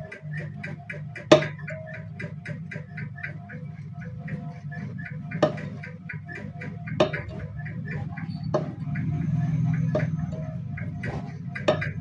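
A few sharp metal clicks from a mini tube cutter being turned and tightened on a copper refrigerator pipe, the loudest about a second in, over an even ticking beat of about four ticks a second and a low hum.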